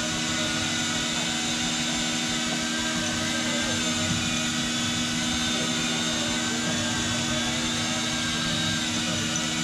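Fishing boat's engine running steadily, a constant drone with a low hum and a hiss over it.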